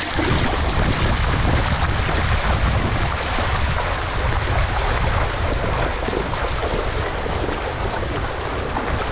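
Steady wind buffeting the microphone, with a low rumble and the wash of water.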